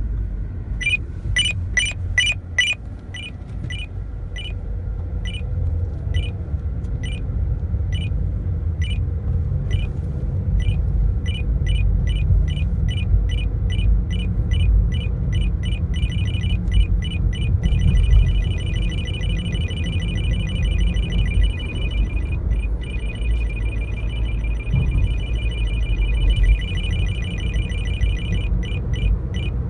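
Radar detector alert beeping at an ISKRA-1D police radar gun: short high beeps repeat about twice a second, then quicken into a rapid continuous trill about halfway through, over a steady car-cabin rumble.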